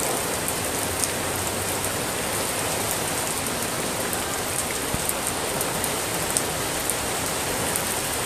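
Steady rain, an even hiss with small scattered ticks of drops.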